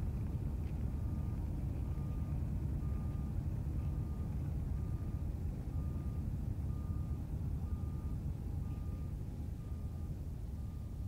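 A vehicle's reversing alarm beeps steadily, one short beep a little under every second, over a heavy, continuous low rumble of engines.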